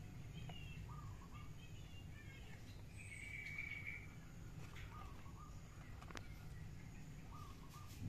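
Small birds chirping on and off in short calls, with one longer call about three seconds in, over a steady low hum. A faint click comes about six seconds in.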